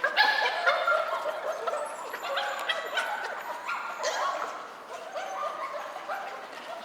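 Mini Bernedoodle puppies whining and yipping, many short high-pitched cries overlapping one another, loudest in the first second.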